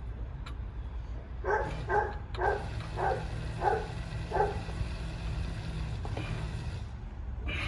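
A dog barking six times in quick succession, about two barks a second, over a steady low rumble.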